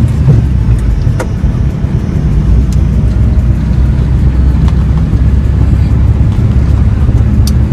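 Volkswagen Kombi's air-cooled engine running steadily at road speed, heard from inside the cab with road noise, as a continuous low drone. A couple of sharp clicks come about a second in and near the end.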